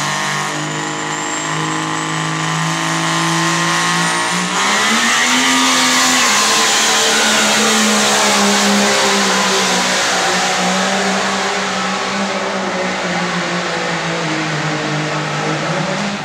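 Pro stock turbo-diesel pickup engine running hard under full load while pulling the weight sled, with a high whine over it. About four and a half seconds in, the engine note climbs and gets louder, then holds.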